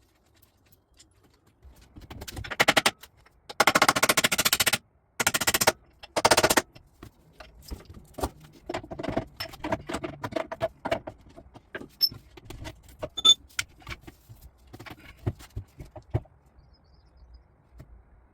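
Power tool hammering in four short bursts of rapid blows, typical of an impact wrench loosening fasteners. After that come scattered clinks and knocks of metal tools and parts.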